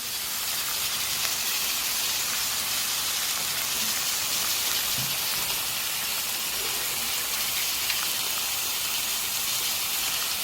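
Frozen pork belly sizzling on a hot tabletop grill pan: a steady, even hiss.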